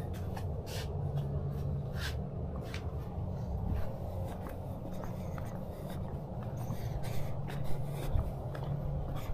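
Rubbing and handling noise on a body-worn camera's microphone as the wearer walks, a steady low rumble with scattered light clicks and scuffs.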